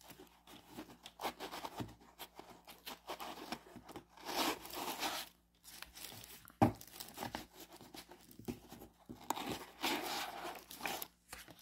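Tissue paper rustling and crinkling in irregular bursts as a deck of tarot cards is handled and lifted out of its wrapping, with one sharp tap about two-thirds of the way through.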